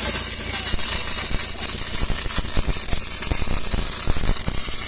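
Electric welding arc crackling and hissing, with irregular pops over a steady hiss.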